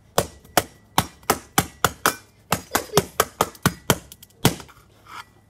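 Rapid hammer blows on an iPhone, about sixteen sharp strikes at roughly four a second, stopping about four and a half seconds in.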